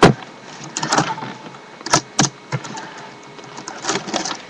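A few sharp knocks and clicks: one at the start and two close together about two seconds in, with rustling and bumping in between as bodies jostle close to the microphone.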